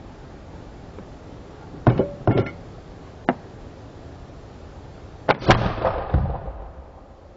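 Plastic-pipe potato cannon: a few sharp knocks and clicks, then a louder bang with a ringing tail about five and a half seconds in.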